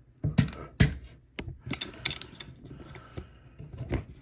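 A hard plastic action figure being handled and posed: a string of sharp plastic clicks and knocks, the loudest about half a second in, just before a second in and near the end, with small ticks and rattles between.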